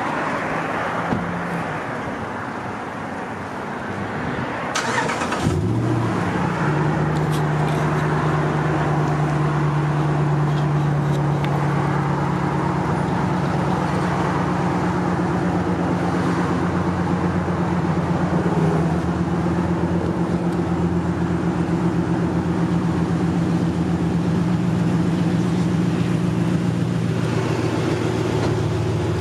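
Motor vehicle engine: it sets in about five seconds in and then runs steadily with a low hum.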